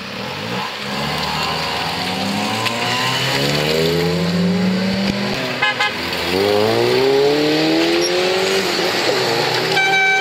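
A car engine revving up as it pulls away. The pitch rises through one gear, breaks briefly about halfway at a gear change, then rises again. A car horn begins sounding right at the end.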